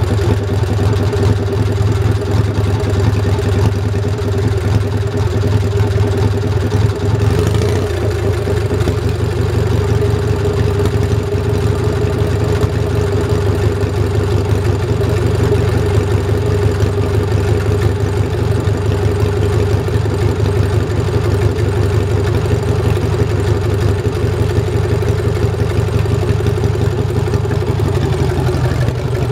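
18 HP Kohler opposed-twin engine of a 1961 Cub Cadet pulling tractor running steadily, with a brief blip about seven seconds in.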